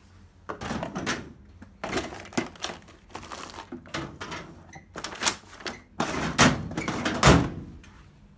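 Metal desk drawers pulled open and rummaged through: a run of irregular clatters, knocks and rustles as objects inside are shoved about, loudest in a burst of knocks near the end.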